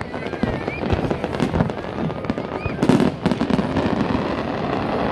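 Aerial fireworks display: a rapid run of bangs from bursting shells over continuous crackling, with the loudest bang about three seconds in.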